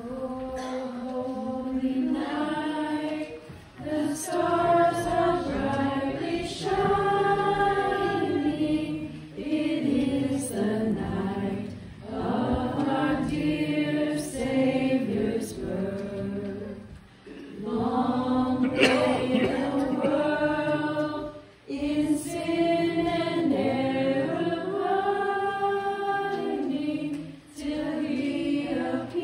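A church group singing a song together, long held phrases with brief pauses for breath between lines.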